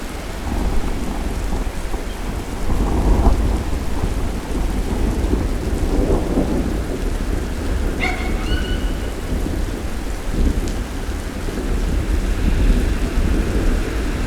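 Steady rain falling with low rolling thunder rumbling throughout, swelling about three seconds and six seconds in. A short high call cuts through once, about eight seconds in.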